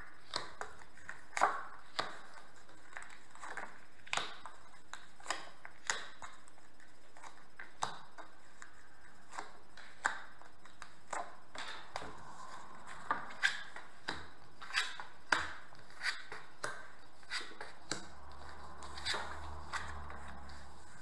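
Oracle cards being dealt one at a time from a deck onto a cloth-covered table and turned over, each card landing with a short, sharp tap, roughly one a second.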